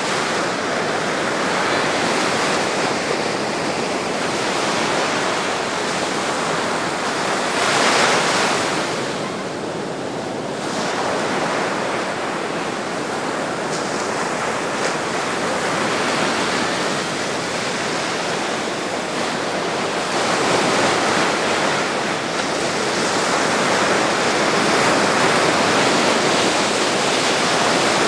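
Sea surf breaking over rocks and washing up the shore: a continuous wash that swells and ebbs with each wave, the loudest surge about eight seconds in.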